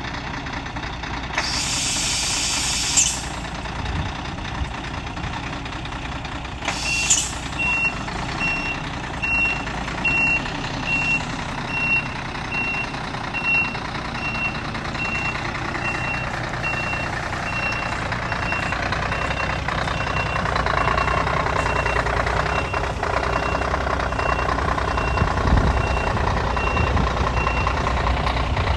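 Scania P114 truck's diesel engine running, with a sharp hiss of air from the brakes about a second and a half in and another short hiss near seven seconds. Then a reversing alarm beeps steadily, a little under twice a second, while the engine grows louder toward the end as the truck moves.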